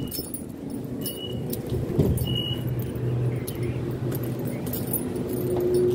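Electric suburban train standing at the platform with its doors open, a steady low hum of motors and air-conditioning, heard from the doorway and then inside the car. Short high beeps come about once a second in the first half, with scattered light clicks and jangles of steps and keys as someone boards.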